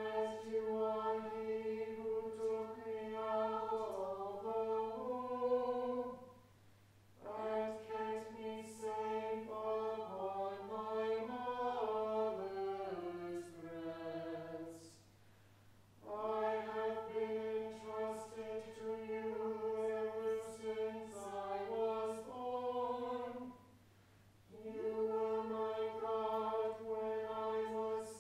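Church choir singing with pipe organ accompaniment, in long sustained phrases separated by short pauses.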